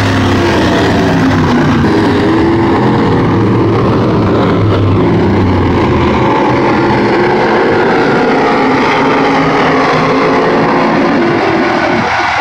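Several dirt-track race car engines running hard around the oval, their pitches overlapping and rising and falling slowly as the cars pass and go away.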